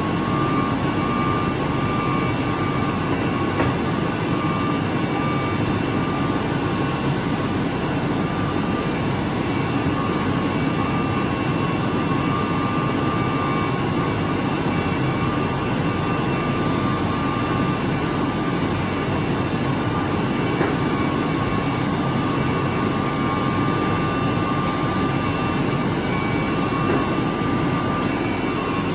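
CNC router with automatic tool changer running: a steady, continuous machine roar with a constant high whine over it.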